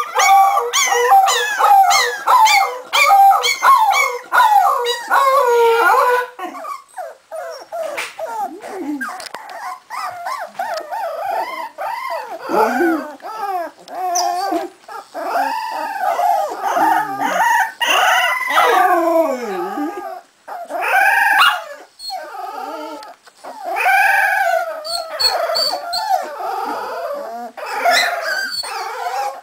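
Three-and-a-half-week-old Cardigan Welsh Corgi puppies howling together: a dense chorus of overlapping high howls for the first several seconds, then fewer, wavering howls that rise and fall in pitch.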